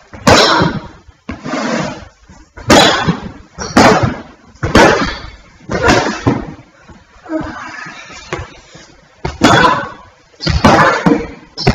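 A run of hard hits in a staged fight, about one a second, each a sudden crack with a short rushing tail.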